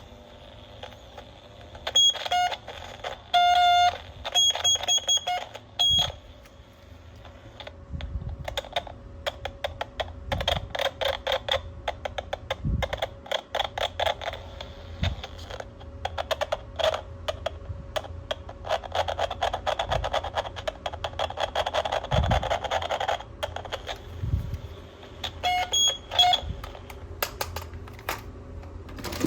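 Battery-powered toy gun sound effects: a burst of electronic beeps over the first few seconds, then a long run of rapid plastic clicking, with a couple more beeps near the end.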